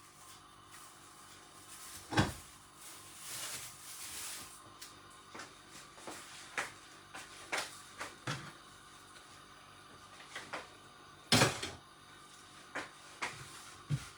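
Cookware and kitchen items being handled: scattered clicks and knocks, with two louder knocks about two seconds in and about eleven seconds in, and a brief hiss around three to four seconds in.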